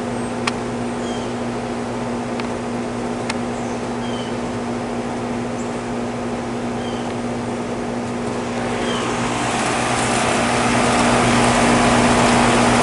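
Outdoor air-conditioning condensing unit running in cool mode: a steady compressor hum under the rush of the condenser fan. The fan noise grows louder about nine seconds in.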